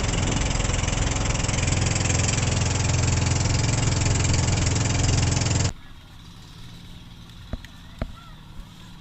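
Boat engine running steadily, close and loud, cutting off abruptly about six seconds in to a much quieter background with a few light knocks.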